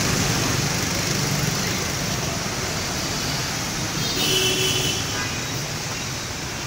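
Steady street traffic noise, with a brief faint pitched sound about four seconds in.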